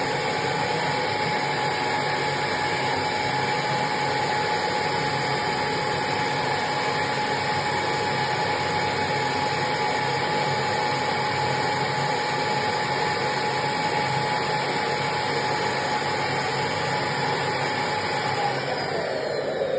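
Vacuum cleaner motor running steadily with a constant whine; near the end its pitch starts to fall as it winds down.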